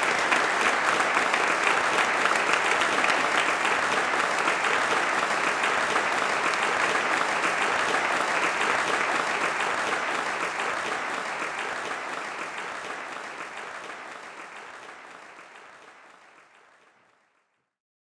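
Audience applauding, a dense steady patter of many hands clapping that fades away over the last several seconds.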